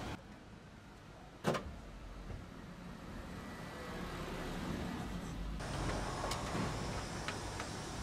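A single sharp click about a second and a half in, as a wiring connector on an air conditioner outdoor unit's control board is handled, over a steady low mechanical hum. About halfway through the hum and hiss grow louder, with a few light clicks near the end.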